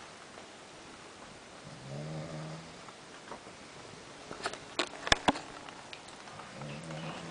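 A young man snoring in his sleep: two long pitched snores about four and a half seconds apart, one per breath. A few sharp clicks come between them.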